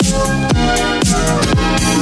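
Electronic dance music with a steady kick drum at about two beats a second under sustained synth chords.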